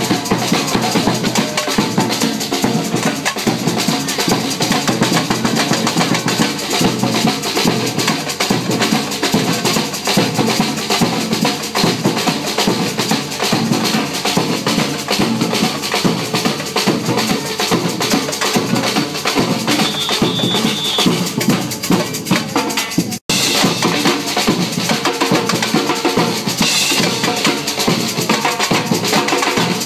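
Live street percussion band drumming a fast, dense, continuous rhythm on bass drums, metal-shelled drums and cymbals. The sound drops out for an instant about three-quarters of the way through.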